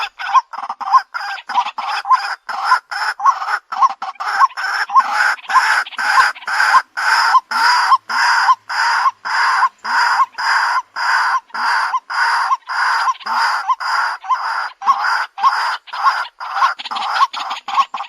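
White-breasted waterhen calling: a long unbroken series of harsh 'kwak' notes, about two to three a second, louder in the middle stretch.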